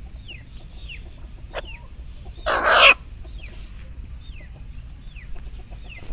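Chickens calling with short, high, falling chirps every half second or so, over a low steady background. A loud, brief rustling noise comes about two and a half seconds in.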